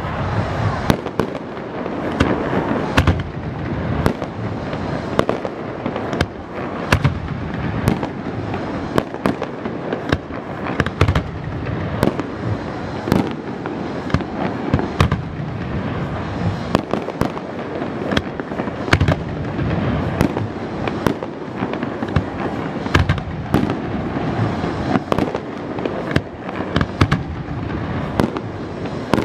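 Fireworks display going off without pause: a dense, continuous crackle of sparks with many sharp bangs and pops, several a second.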